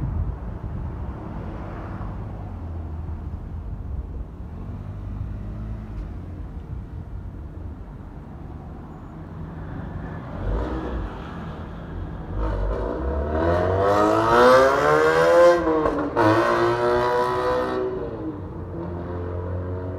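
A Keikyu electric train passes the level crossing with a low rumble. Its motors whine in a stack of tones that rises in pitch, dips sharply and fades away, loudest about 14 to 17 seconds in.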